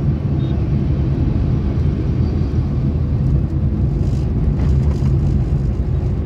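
Steady low rumble of a moving car's road and engine noise inside the cabin, picked up by a phone's microphone.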